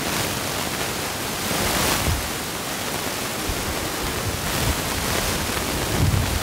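Steady broad hiss of outdoor background noise, with a couple of low bumps about two seconds in and near the end.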